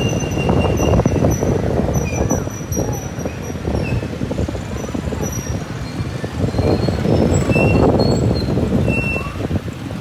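Street ambience dominated by motor traffic running, with short high chirping tones scattered through it.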